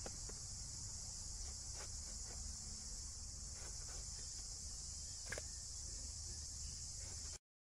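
A steady, high-pitched insect chorus, with faint scattered clicks of a knife cutting through raw jackfruit. The sound cuts off abruptly near the end.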